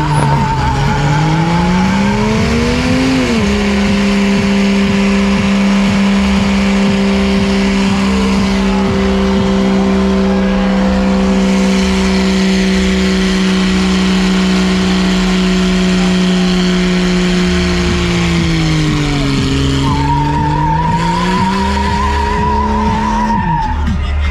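Jeep Cherokee doing a burnout: the engine is revved high and held steady while the tires spin. The revs dip and climb back near the end. A wavering tire squeal comes at the start and again near the end, as the revs drop.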